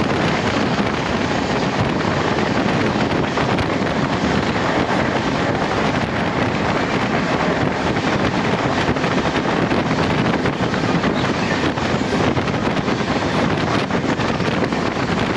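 Steady rush of wind and running noise from a moving passenger train, with wind buffeting the microphone.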